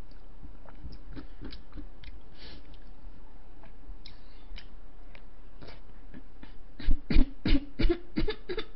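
Soft eating sounds of a wooden spoon and chewing on shaved ice, then, near the end, a quick run of about seven short, loud mouth and throat noises.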